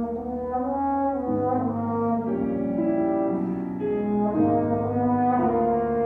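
A brass instrument playing a melody of sustained notes, changing pitch every half second to a second.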